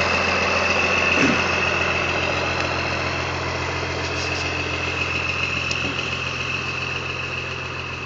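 Blue Bird party bus's engine idling steadily, with a steady high-pitched whine over it, growing gradually quieter toward the end.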